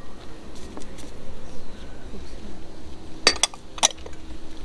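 Cooking utensils clinking against cookware: two sharp clinks about half a second apart, a little over three seconds in.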